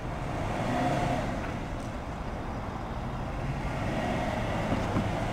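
Steady low rumble of a car rolling slowly at walking pace, swelling slightly about a second in.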